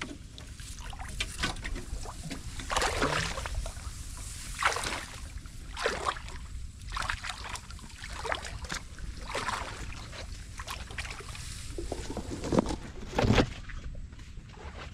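Shallow muddy water sloshing and splashing as someone wades through it, in irregular swishes about a second apart, with two louder splashes near the end.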